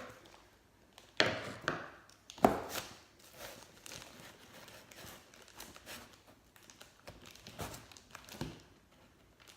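A delivered parcel being torn open by hand: two sharp tearing noises about one and two and a half seconds in, then a run of crinkling and rustling of the packaging.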